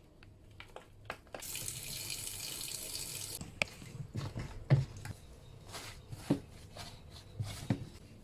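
A water tap runs for about two seconds and then shuts off. Several knocks and clicks follow as hard items are handled and set down.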